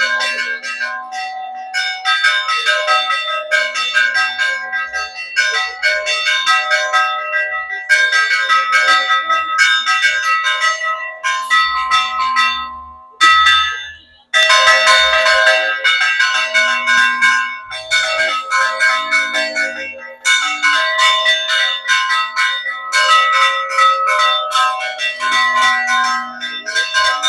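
Church bells rung by hand in a fast, continuous peal of clanging strikes, announcing the start of the village fiesta. The ringing stops briefly about halfway through, then starts again.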